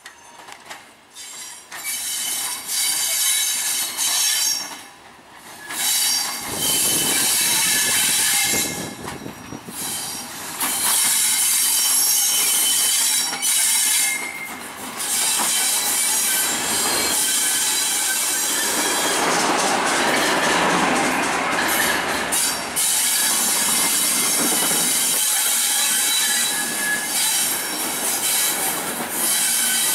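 Ex-NIR 450 Class 'Thumper' diesel-electric multiple unit 458 running slowly over curved track and points, its wheels squealing in shrill on-and-off tones, with some clicking over the rail joints.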